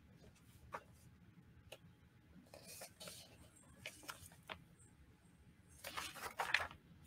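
Faint rustling of paper and soft ticks as the pages of a sheet-music book are turned by hand, with a longer rustle near the end.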